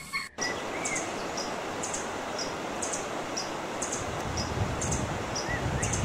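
Forest ambience: a steady hiss with a regular series of short, high chirps about two a second and a couple of faint whistles. A low rumble builds near the end.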